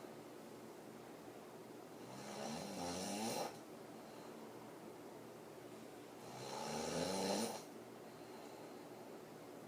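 A woman snoring hard through an open mouth while lying on her back. There are two long snores about four and a half seconds apart. Each rises in pitch as it builds and then stops abruptly.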